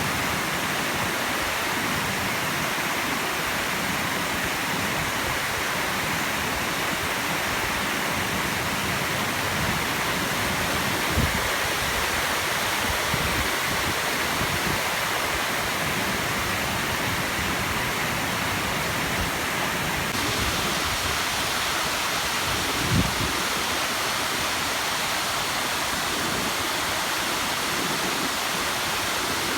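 River water pouring over a waterfall: a steady, unbroken rush. Two brief low thumps stand out, one about 11 seconds in and one about 23 seconds in.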